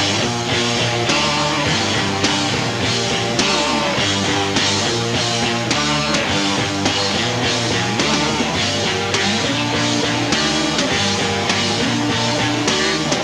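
Live rock band playing an instrumental passage: electric guitar over drums keeping a steady beat, with no singing.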